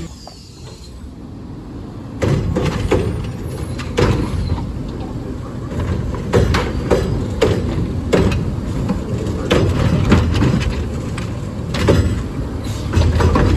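Garbage truck running, with a series of sharp bangs and clanks; the loud running noise sets in about two seconds in.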